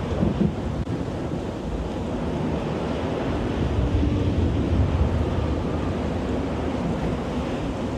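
Ambient sound-design soundscape: a steady low rumbling noise, like wind and surf.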